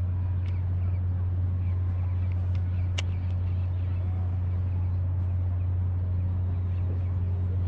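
A steady low hum that does not change in pitch or level, with one sharp click about three seconds in.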